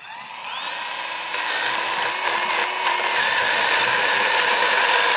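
Milwaukee 12V cordless mini chainsaw spinning up to a steady high whine, then cutting into wood from about a second in, its pitch wavering slightly under load.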